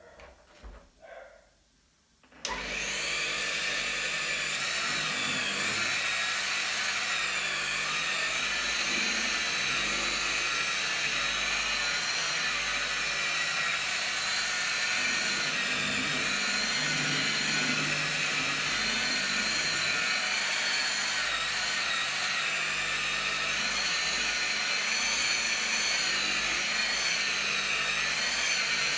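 Handheld rotary polisher with a foam pad switched on about two seconds in, then running steadily as it buffs a car's clear coat, its whine wavering slightly as the pad is worked over the paint.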